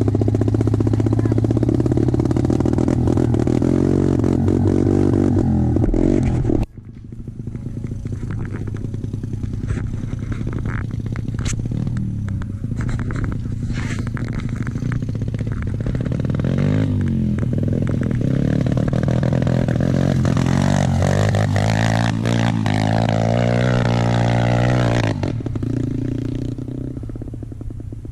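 Motorcycle engine running loud and close, stopping abruptly about a quarter of the way in. Then an off-road motorbike is heard climbing a steep gravel hill, its revs rising and falling as it gets louder, before it fades away near the end.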